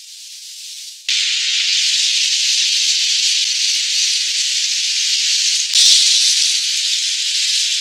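Garlic-topped seafood sizzling steadily in oil in an electric grill pan, the hiss jumping up loud about a second in as the lid comes off. A brief knock sounds about six seconds in.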